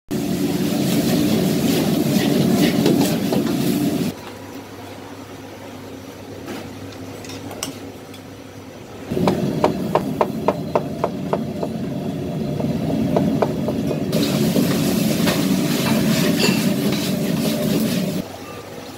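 Gas wok burner rushing under stir-frying in a wok, with sizzling and the scrape of a metal spatula. In the middle, a cleaver chops on a plastic cutting board, about eight quick strokes at four or five a second, before the burner and sizzling return.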